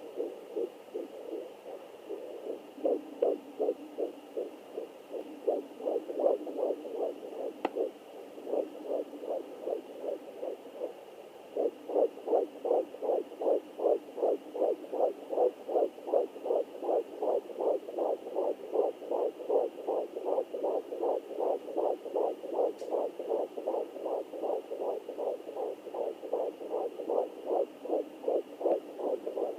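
Fetal heartbeat through a home fetal doppler: fast, even beats, about two and a half a second. The beats grow weaker for a few seconds about eight seconds in, then come back stronger. There is a single click just before the weak stretch.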